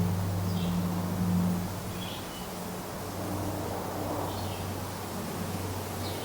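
Low, steady drone of a distant aircraft overhead, loudest in the first second or two and then fading, with short high bird chirps scattered through forest ambience.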